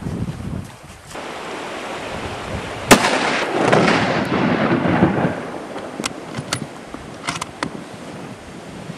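A single hunting rifle shot about three seconds in, its report rolling on as a long echo for about two seconds. A few short sharp clicks follow a little later.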